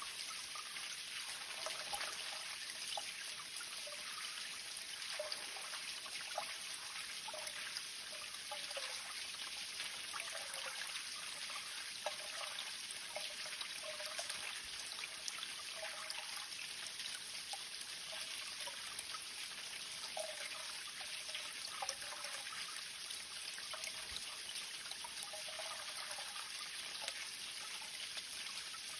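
Sacred spring water (goshinsui) trickling and splashing steadily, with small bright plinks and gurgles of falling water scattered throughout.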